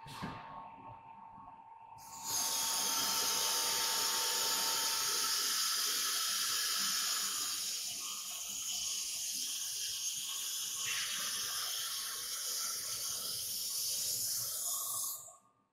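Compressed air hissing steadily from the open nose of a CNC router's automatic-tool-change spindle while its tool is released during a tool change. The hiss starts about two seconds in, after a short puff, and cuts off sharply near the end.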